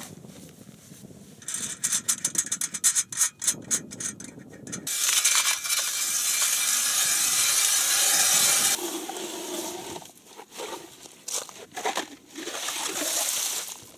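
Hand ice auger drilling into lake ice, its blades scraping and crunching through the ice. A run of quick crunches starts about a second and a half in, a steady rasp follows from about five to nine seconds, then shorter scraping bursts.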